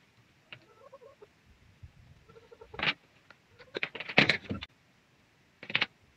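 Hand cutters crunching through the insulation of a thick cable as its ends are cut and stripped, in short crunches: one about three seconds in, a quick cluster just after four seconds, and one more near the end.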